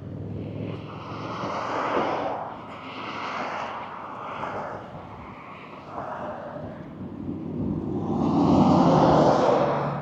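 Road traffic passing close by on a highway, several vehicles whooshing past one after another with tyre and engine noise swelling and fading, the longest and loudest pass near the end.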